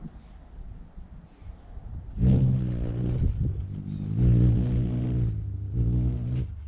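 Rufous hummingbird's wings humming at close range in three bursts of about a second each as it hovers and flutters at the feeder. A thin high buzz sits over the low hum, and each burst starts and stops abruptly.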